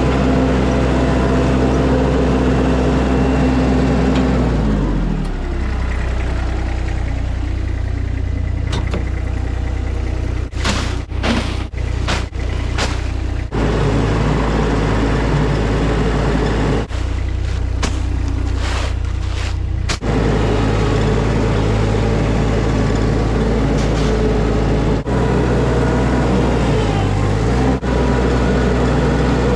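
Skid steer engine running hard, its revs dropping about five seconds in, then running steadily, with a few short knocks in the middle.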